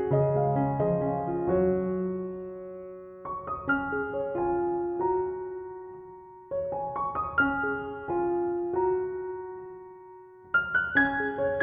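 Soft background piano music: short phrases of struck notes that ring and fade away, with a new phrase starting every three to four seconds.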